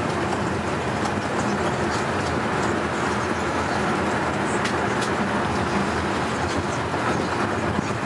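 Vehicle driving along a road, heard from inside the cabin: a steady rumble of motor and tyres with a few faint clicks.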